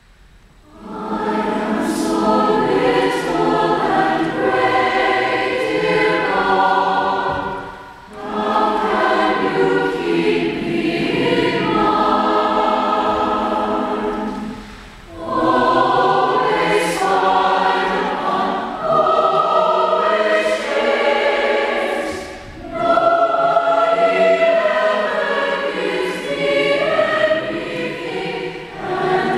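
Large mixed choir of women's and men's voices singing in long phrases, with short breaths between phrases about 8, 15 and 22 seconds in.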